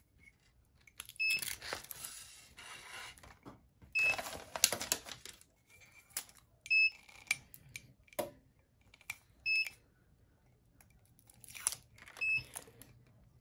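Heat transfer tape and sublimation paper being peeled and torn off a ceramic mug in several separate rips. Short electronic beeps from the mug press sound every few seconds.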